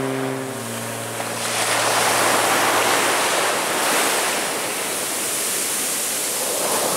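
Atlantic surf washing up a sandy beach: a loud hiss of foaming water that swells in about a second and a half in and rises and falls with each wave. A steady low hum fades out during the first second.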